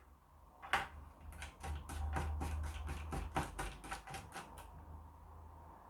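A screwdriver driving in the single screw that holds down the RISC PC's motherboard: a click, then a run of quick clicks at about four to five a second that stops near the end.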